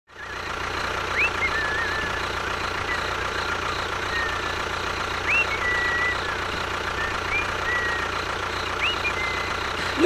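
A small engine or motor running steadily at idle, with a low hum. Five short whistled chirps, each sweeping up and then levelling off, come through it at irregular intervals.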